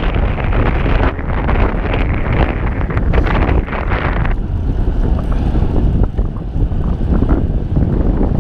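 Wind rushing over the microphone of a bike-mounted camera on a fast road-bike descent, a loud, steady buffeting. About halfway through the rush loses its higher part and turns duller.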